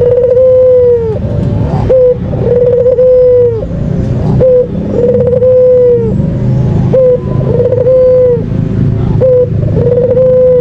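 White puter dove cooing over and over, five calls about every two seconds. Each call is a short note followed by a long held coo that drops in pitch at the end, over a steady low rumble.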